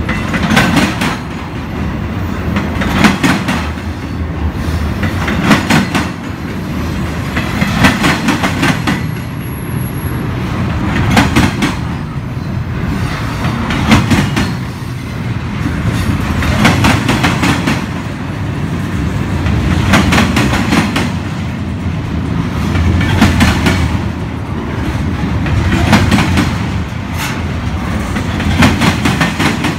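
Union Pacific double-stack container train's cars rolling past: a steady rumble of wheels on rail, with a burst of clickety-clack from each car's wheel sets about every three seconds.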